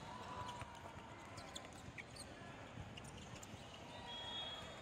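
Gym noise during a youth basketball game: a basketball bouncing on the hardwood court, with a few short high squeaks about one and a half to two seconds in, over a steady background hum of the hall.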